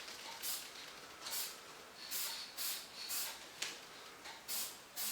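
Aerosol spray paint can sprayed in a string of short hissing bursts, roughly one every half second to second, feathering a light coat of paint onto a lantern.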